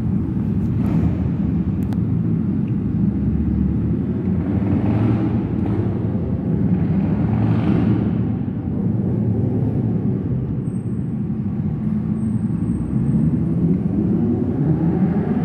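Several motorcycle engines running together, with bikes revving up and pulling away one after another in swells; one engine revs up with rising pitch near the end.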